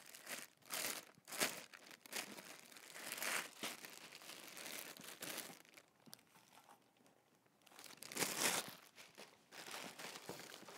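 Plastic packaging crinkling and rustling in irregular bursts as the telescope's accessory tray is unwrapped from its clear plastic bag and bubble wrap is handled, with a short quiet spell after the middle and a louder rustle about eight seconds in.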